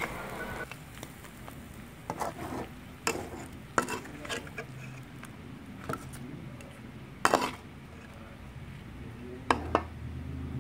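Metal spatula scraping and clinking against a wok while stir-frying prawns. Several sharp clinks come a second or more apart, the loudest about seven seconds in, over a low, steady sizzle of frying.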